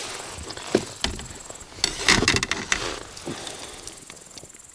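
A small hooked fish splashing and flapping at the side of the boat as it is landed. A couple of knocks come about a second in, then a burst of splashing and knocking about two seconds in, with insects chirring steadily in the background.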